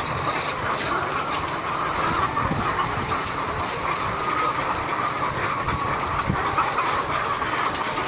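Steady, dense din of many caged white laying hens calling at once in a battery-cage layer house, with many small clicks running through it.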